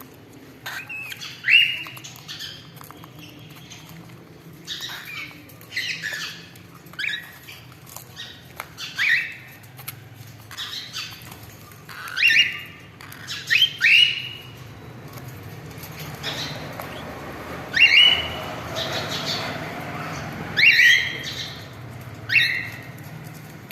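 Cockatiels calling: short, shrill squawking calls repeated at irregular intervals, about a dozen over the stretch.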